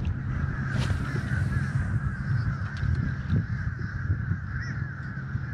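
Birds chattering and calling continuously, many small chirps running together, over a steady low rumble.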